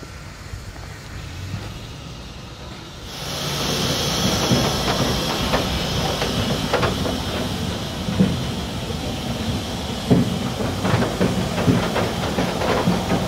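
Steam locomotive Pm36-2, a Polish Pm36 Pacific, blowing off steam: a loud hiss that starts suddenly about three seconds in, with irregular metallic clanks and knocks from the engine.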